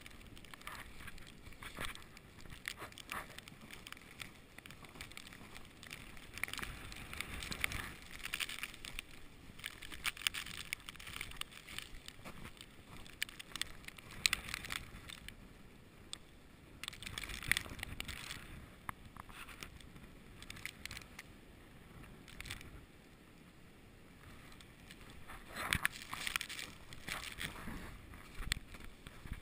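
Wind gusting in a snowstorm, rising and falling in swells, with many irregular crackles and crunches.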